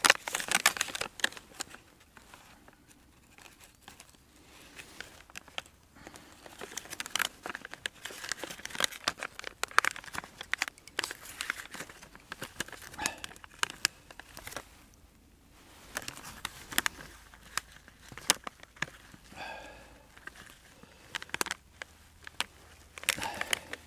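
Crinkling and rustling of a food wrapper, with small sharp crackles in spells and short pauses, as butter and cheese are unwrapped and put on freshly baked bread.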